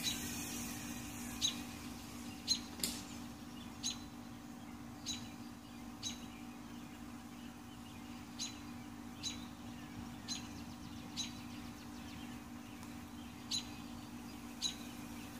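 A bird chirping: about a dozen short, sharp chirps, roughly a second apart, over a faint steady hum.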